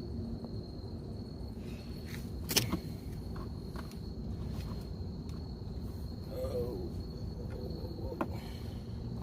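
A steady, high insect trill over a low outdoor rumble, with a sharp click about two and a half seconds in and another near the end.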